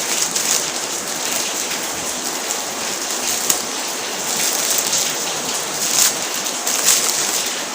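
Plastic packaging crinkling and rustling continuously as it is torn open by hand, with a few louder crackles about three and a half, six and seven seconds in.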